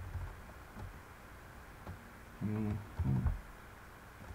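Soft computer keyboard keystrokes, a few scattered clicks. About two and a half seconds in, two short wordless voiced hums from the typist are the loudest sounds.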